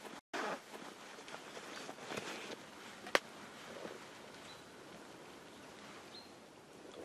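Faint outdoor background of soft rustling and handling noise, with a single sharp click about three seconds in and two short high chirps later on.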